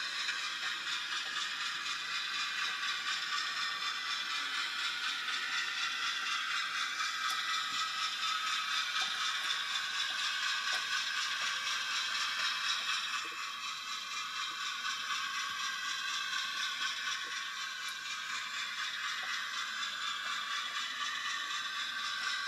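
OO gauge model diesel shunter running along the track with a train of wagons: a steady whirring of motor and wheels with a few faint clicks, easing slightly in level about halfway through.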